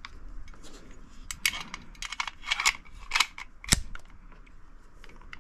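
Metal clicks and sliding of a stainless 1911 pistol's action being worked by hand, a quick run of clicks, then one loud sharp snap near the end as the slide goes home.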